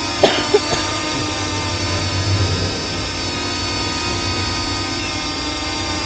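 Parrot Anafi quadcopter's propellers whining steadily while it hovers overhead, an even, unchanging multi-tone hum. A few short knocks come in the first second.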